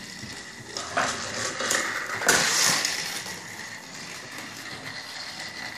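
A battery-powered Thomas TrackMaster toy engine runs along plastic track with a faint steady whine. Sharp plastic clatters come about one second in and again near the middle, the loudest and longest a little past two seconds.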